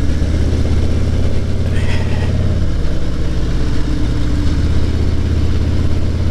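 Motorcycle engine running steadily while riding at road speed, its note dropping slightly about two and a half seconds in.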